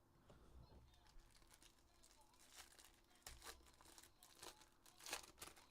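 Near silence with faint, scattered rustles and light clicks of trading cards and pack wrappers being handled.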